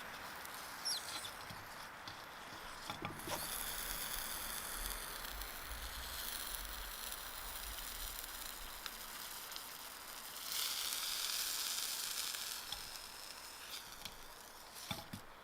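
Marinated chicken wings sizzling on a barbecue grill, a steady hiss with a few small ticks, growing louder for a couple of seconds past the middle.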